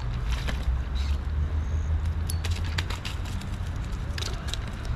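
Scattered clicks and light rattles of fishing reel and tackle being handled as a small carp is landed, over a steady low rumble.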